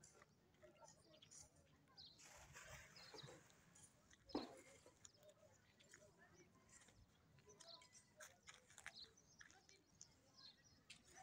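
Near silence: faint outdoor ambience with scattered bird chirps, and a single sharp knock about four seconds in.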